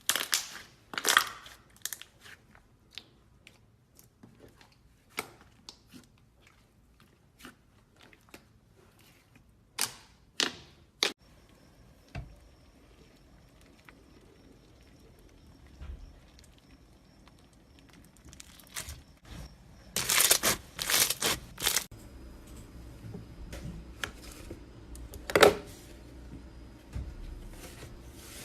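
Irregular crinkling and crackling handling sounds with scattered sharp clicks, as slime is squeezed and worked by hand. A louder cluster of crackles comes about twenty seconds in, and a faint steady hum runs under the second half.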